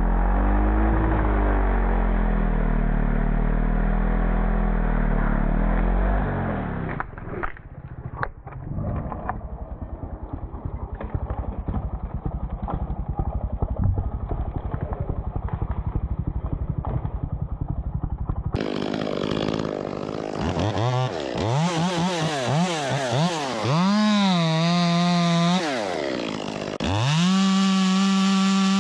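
Ported Echo 25T top-handle chainsaw's small two-stroke engine, revving up and dropping back again and again as it cuts, over the second half. Before that there is a loud low rumble with a wavering pitch, then a fast rasping rhythm.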